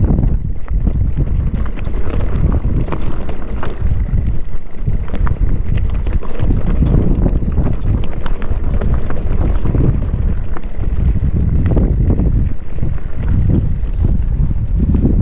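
Wind buffeting the microphone of a camera on a moving mountain bike, with a constant clatter of small rattles and knocks from the bike on rough trail.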